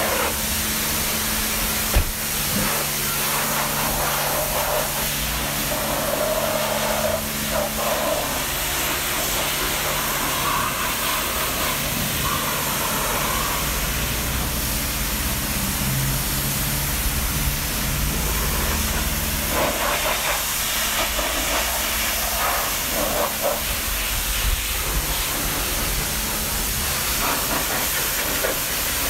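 High-pressure washer jet spraying water against a car's body panels: a steady, loud hiss with a low steady hum underneath. One sharp knock about two seconds in.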